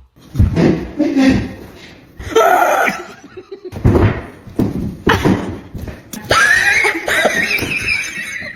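People making silly sounds with their voices and laughing: several short vocal bursts, then a long high-pitched squeal-like sound from about six seconds in.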